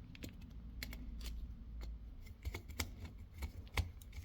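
Scattered light clicks and taps, about a dozen at irregular intervals, of small hard parts and tools being handled during a thermostat repair.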